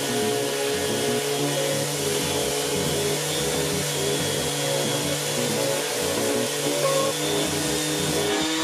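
Electric random orbital sander running steadily while sanding a flat wooden panel.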